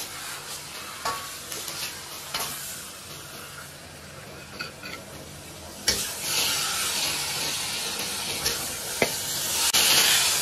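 Hot stir-fry sizzling in a wok while a metal ladle scrapes it out onto a plate, with sharp clicks of the ladle against the wok now and then. The sizzling hiss grows louder from about six seconds in.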